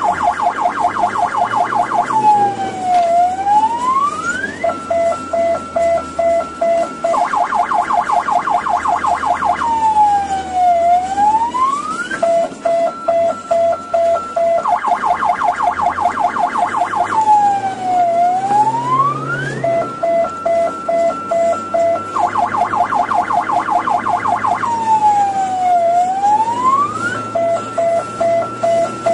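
Ambulance electronic siren cycling through its patterns: a rapid beeping, then a fast warble, then a slow swoop down and back up. The cycle repeats about every seven and a half seconds, over a low rumble.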